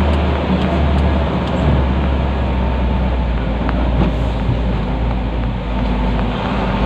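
Isuzu Elf NKR 71 truck's diesel engine running steadily as the truck rolls slowly along, heard from inside the cab with road noise.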